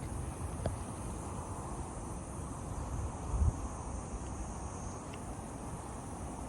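Steady high chirring of insects, with wind buffeting the microphone in low rumbles and a brief stronger gust about three and a half seconds in.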